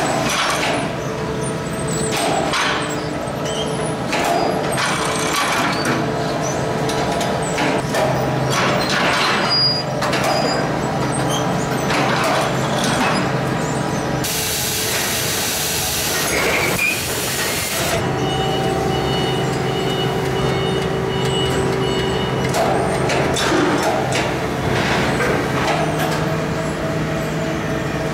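Sheet-metal shop machinery running with a steady hum and several held tones, scattered clanks and knocks, and a loud burst of air hiss about fourteen seconds in that lasts some four seconds.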